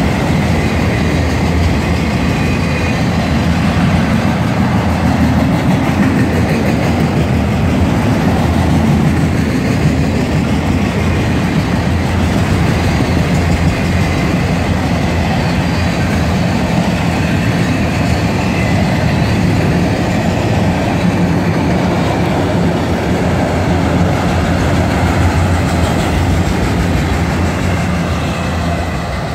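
CSX freight train of autorack cars rolling past close by: a steady, loud noise of steel wheels running on the rails, easing slightly near the end.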